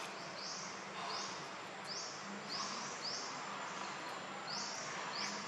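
Forest ambience: a short, high chirp that rises in pitch, repeated every half second to a second, over a faint steady hum.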